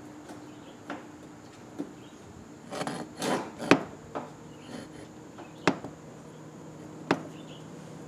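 Scattered sharp knocks and a short stretch of scraping about three seconds in, from a cable being pushed through a tight 1-inch hole in a wall with a 3-foot drill bit.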